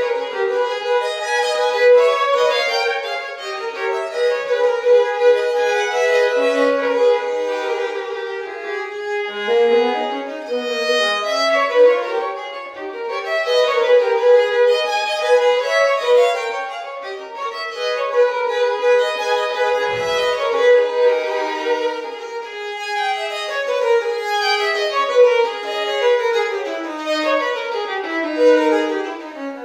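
Two violins playing a Baroque duet together, a continuous stream of quick notes in both parts.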